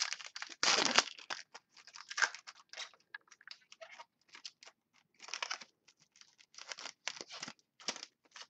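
Trading cards and their pack wrapper being handled: irregular scratchy rustling and crinkling, with a louder rustle about a second in.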